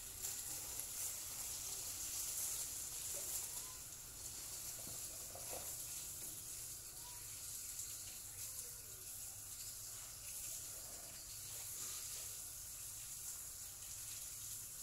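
Steady hiss of water spraying from a garden hose.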